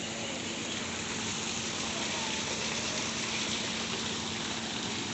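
Steady rush of falling water, with a faint low hum underneath.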